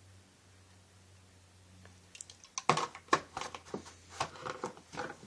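Handling noise: a low steady hum, then about halfway a quick run of knocks, clicks and crinkles as objects are picked up and moved.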